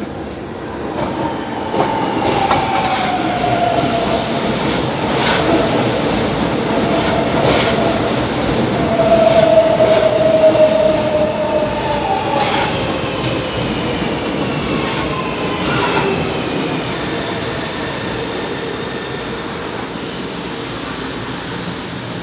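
São Paulo Metro train running into the station and past the platform on a curved elevated track. It rumbles steadily, with a high whine that falls slowly in pitch as it slows, loudest about halfway. Scattered clicks of the wheels over rail joints come through the rumble.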